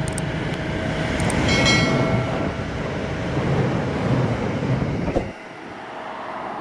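Passenger train running past and beneath, a steady rail rumble that drops off sharply about five seconds in as it clears. A brief high ringing tone comes about a second and a half in.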